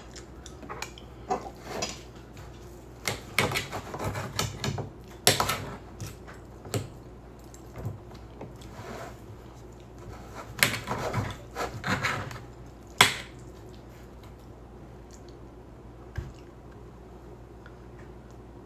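Knife and fork cutting steak on a dinner plate: scattered clicks and scrapes of metal on the plate, with one sharp clink about thirteen seconds in, then quiet.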